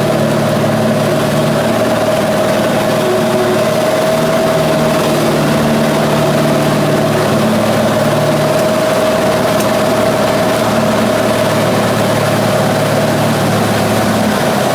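1958 Cessna 182's Continental O-470 six-cylinder engine and propeller running steadily in flight, a loud constant drone with a steady tone above it, mixed with wind noise, heard inside the cabin.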